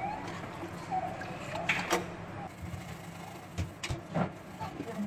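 Plastic TV casing and metal grille being handled and scrubbed in a steel basin of soapy water: wet sloshing with several sharp knocks of the parts against each other and the basin, and a short squeak about a second in.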